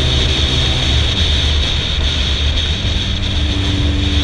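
Suzuki Hayabusa's inline-four engine running at cruising speed through M4 aftermarket exhausts, with steady wind rush. About three seconds in a higher steady tone joins and rises slightly as the revs climb.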